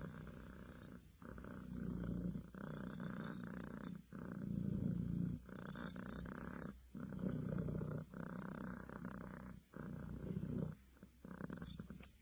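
A cat purring close up, in repeating stretches broken by short pauses as it breathes in and out.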